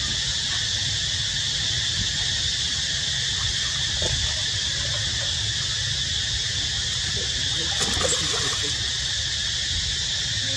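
Steady high-pitched insect chorus over a low rumble, with a few faint short squeaks around the middle.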